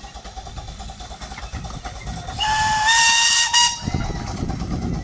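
Steam whistle of the 1970 Severn Lamb miniature steam locomotive No. 3 Dougal blowing a single blast of about a second and a half, starting about two seconds in. The note steps slightly higher partway and breaks briefly just before it cuts off. The train's low running rumble is heard underneath and after it.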